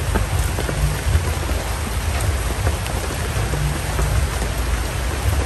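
Steady rain falling, with scattered sharp drop hits over a constant low rumble.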